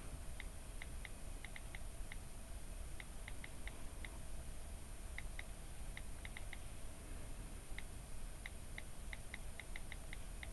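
iPhone on-screen keyboard key clicks as letters are typed one by one: short, sharp high ticks in quick runs with brief pauses between them, over a faint steady hiss.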